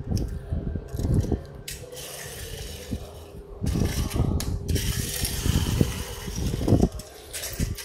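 Die-cast Tomica toy truck being handled and rolled across a tile floor, its small plastic wheels rumbling unevenly, with a few sharp clicks and knocks.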